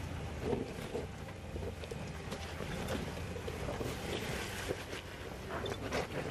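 Jeep Wrangler JL engine running low and steady as it crawls up rock ledges, with a few scattered knocks from the tires on rock and wind buffeting the microphone.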